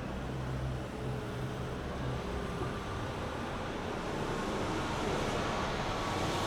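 City street traffic: a vehicle engine's low hum fades out over the first two seconds, then the rush of traffic noise slowly grows louder toward the end as more vehicles approach.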